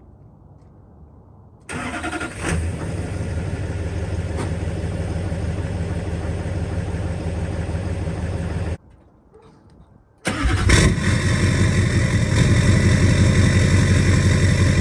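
A 2007 LBZ Duramax 6.6 L turbo-diesel V8 with a 5-inch downpipe-back straight-pipe exhaust, started cold: it cranks and catches about two seconds in and settles into a steady idle. It cuts off abruptly. After a short quiet gap it starts again and idles, noticeably louder.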